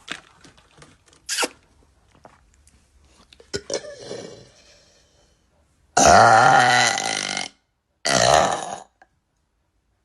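A woman burping twice, loud and drawn out: a long burp about six seconds in, then a shorter one, each low-pitched and wavering. Softer small clicks and short throat sounds come before them.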